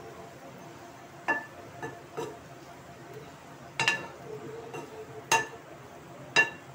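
A steel spoon clinking against the side of a cooking pan as it stirs and pats down minced meat: about six short, sharp knocks with a brief metallic ring, spaced irregularly.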